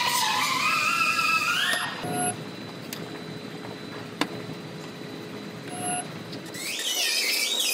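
Resistance spot welder pressing its copper electrodes on the panel seam and welding: a high-pitched whine that slides in pitch for the first two seconds and again near the end, with a quieter hiss between and one sharp click about four seconds in.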